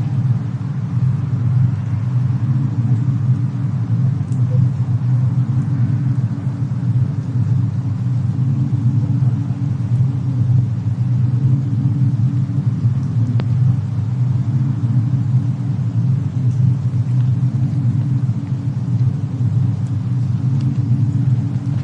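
Steady low rumble of a fireplace-and-snowstorm ambience, with a few faint crackles from the fire now and then.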